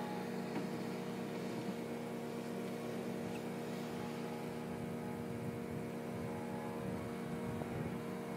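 Steady machinery drone from a wheeled skid-steer loader's engine as it drives to the compost pile and back, over the constant hum of a portable generator powering a compost screener.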